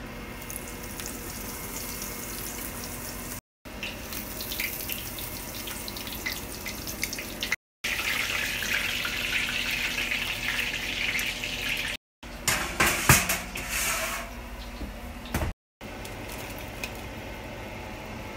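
Parmesan-crusted chicken cutlets sizzling and crackling as they fry in a pan of hot oil, in several short clips broken by brief silent cuts. About two-thirds of the way through come a handful of sharp metal clicks and knocks.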